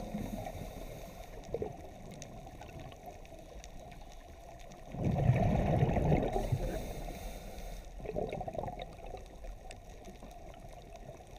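Scuba diver's breathing heard underwater: bursts of exhaled regulator bubbles gurgling past the camera, a long one about five seconds in and a weaker one about eight seconds in, over a steady low underwater rumble.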